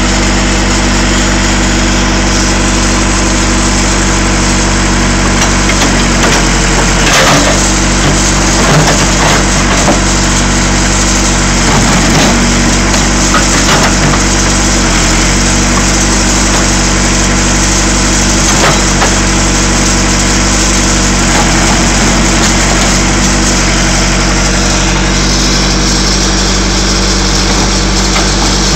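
1987 Case 580 Super E backhoe's diesel engine running steadily, its note shifting a little as the hydraulics work, while a pickup truck box is crushed: several sharp cracks and crunches come through the middle of the stretch.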